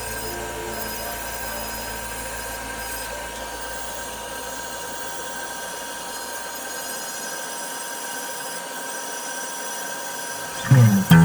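Steady machine hum with a high, even whine, like a small motor-driven tool running; the low part of the hum fades away in the last few seconds. Music comes in just before the end.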